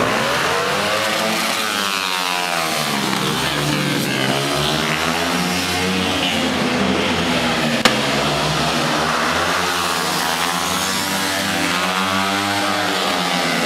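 Vehicle engine running, its pitch rising and falling several times, with one sharp click about eight seconds in.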